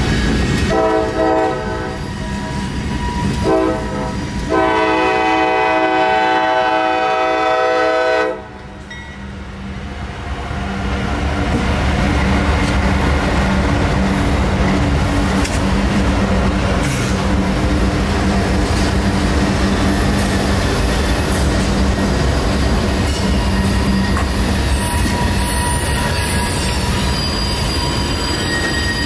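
CSX freight locomotive horn sounding two long blasts for a grade crossing. Then the diesel locomotives pass close by at low speed with a steady rumble and engine hum, followed by freight cars rolling through, with thin wheel squeal near the end as the train takes the curve.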